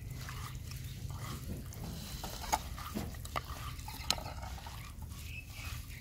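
Hands mixing raw fish pieces with spice masala and lemon juice in a clay bowl: soft wet handling sounds with a few short clicks as pieces knock together, over a low steady hum.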